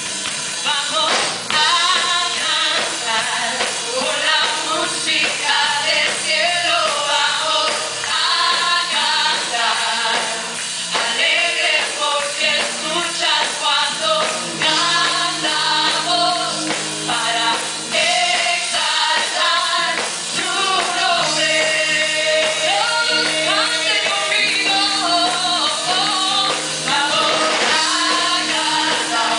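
Live gospel worship singing: a woman leads on a microphone with several male and female backing singers, over instrumental accompaniment that holds long sustained notes.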